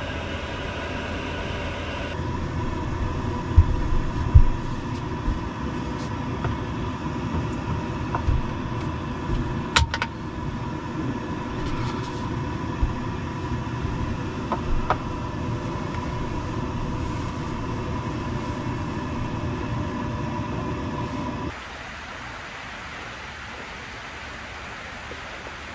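Steady mechanical hum of a small motor or fan with a constant faint whine and a few light knocks. Near the end it gives way to a quieter, even hiss.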